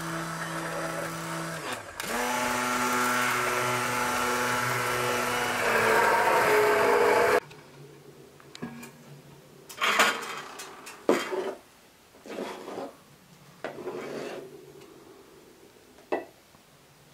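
Hand-held immersion blender running in a pot of milky rice pudding mixture. Its motor pitch steps up about two seconds in and again near six seconds, then it cuts off suddenly. After that a metal ladle clinks against the pot and porcelain bowls several times as the pudding is served out.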